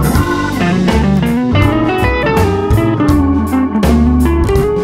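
Guitar-led background music with a bass line and a steady beat.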